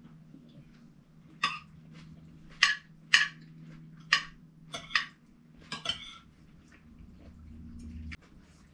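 Metal forks and spoons clinking against ceramic plates while eating: a string of sharp, unevenly spaced clinks.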